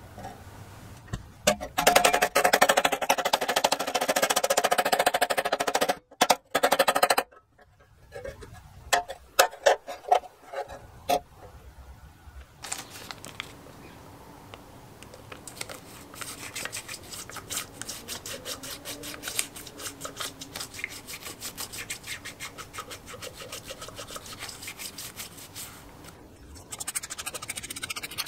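A loud scraping noise for several seconds, then a few sharp knocks. After that comes fast, steady scratching on masking tape laid over a small engine's cylinder head face, as the outline of a new paper head gasket is marked and cut with a craft knife.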